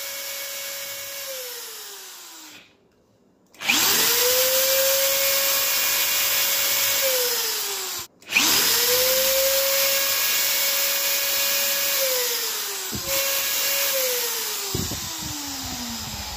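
Electric drill boring out the screw holes in 3D-printed plastic parts so the screws will fit. The motor whines at a steady pitch, then winds down and spins back up again in about four short runs, with two brief silent breaks.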